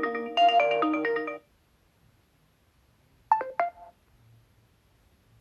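Oppo A16 built-in ringtone playing a melody of quick struck notes that cuts off about a second and a half in. About two seconds later comes a short chime of three quick notes.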